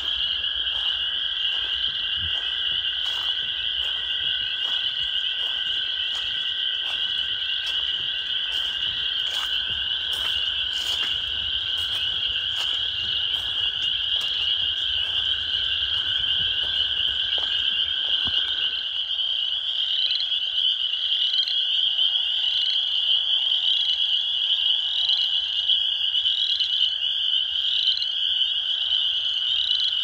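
Dense chorus of spring peepers, a continuous high peeping, with close single peeps standing out in the second half. Under it runs a long steady trill of toads that stops about two-thirds of the way through. In the first half come regular footsteps on a dirt trail.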